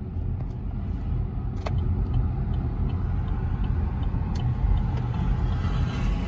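Low, steady road rumble of a moving car heard from inside its cabin, with a couple of faint light clicks.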